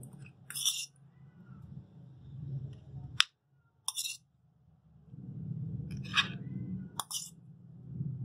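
Metal spoon clinking against a stainless steel bowl as diced boiled potatoes are scooped out and spooned onto a platter: several sharp, separate clinks over a steady low hum.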